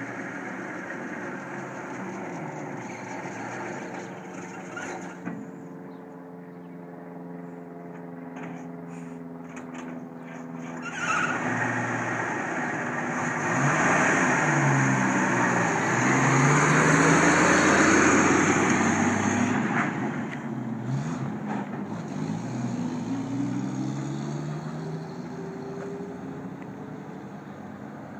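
GMC CCKW army truck's straight-six engine driving up the road, getting louder as the truck comes close and passes, then pulling away with rising revs and fading into the distance.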